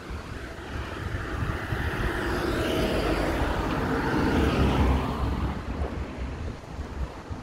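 A vehicle passing by, its sound swelling to a peak about four to five seconds in and then fading. Wind rumbles on the microphone throughout.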